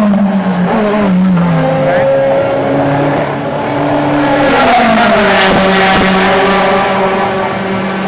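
DTM race cars' V8 engines running, several heard at once. Their notes drop in pitch over the first two seconds and then hold steady. One swells louder and fades about five seconds in.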